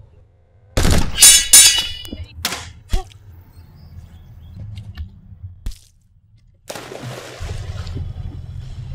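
Two loud crashing hits with a metallic ringing about a second in, followed by a few sharp knocks, then a steady rushing noise starting near the end.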